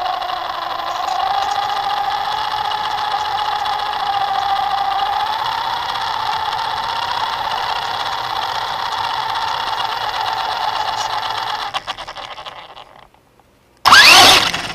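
Small electric motors of a radio-controlled quadcopter–truck running with a steady hum that wavers gently in pitch, fading out about twelve seconds in. Near the end comes a short, loud rush with a rising pitch.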